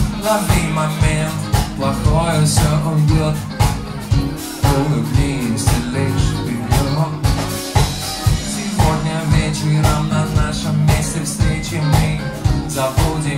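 Live band playing a steady groove, led by electric bass and drum kit with a regular beat, other melodic parts over the top.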